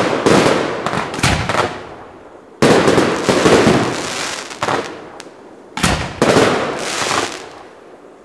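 Aerial fireworks, shells and fanned compact cakes, going off in a volley: a series of loud bangs, each followed by a dying crackle and rumble, with bursts coming about a second or two apart.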